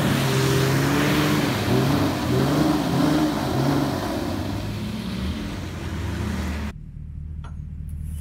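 Truck and Jeep engines revving hard in repeated surges while the tyres spin on ice with no traction, pulling against a tow strap on a stuck vehicle. About two-thirds of the way through, the sound cuts suddenly to a quieter, steady low engine rumble.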